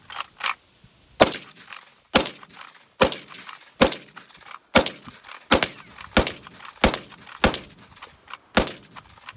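Uberti 1873 Winchester short rifle in .357 Magnum fired rapidly, about ten shots roughly a second apart, with the lever action clacking between shots as it is cycled by hand as fast as possible.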